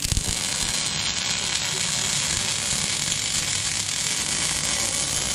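Electric welding arc burning steadily, a dense crackling hiss with no pitch to it.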